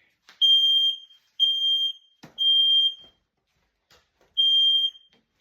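Smoke detector sounding its test alarm: three loud, high-pitched beeps of about half a second each, a pause, then a fourth beep starting the next round. This is the standard temporal-three alarm pattern, and it shows the detector works. A sharp click comes just before the first beep and another between the second and third.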